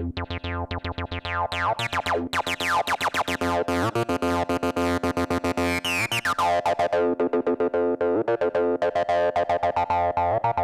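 Roland TB-03 bass synthesizer playing a fast sequenced acid bassline of repeating 16th notes on its square wave, with the built-in overdrive switched on. Its tone brightens and darkens as the filter sweeps, giving a hollow, mid-range overdriven sound.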